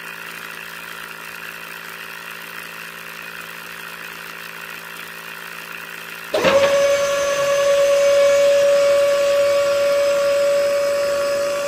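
Small DC motors of a homemade toy borewell drilling rig running: a quiet steady hum, then about six seconds in a much louder, steady high-pitched motor whine starts suddenly and holds.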